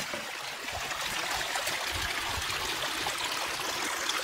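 Water running steadily out of a farm drain, a constant rushing flow.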